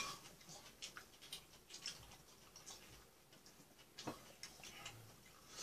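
Faint, irregular clicks of metal chopsticks picking food from plates and bowls, with one clearer click about four seconds in.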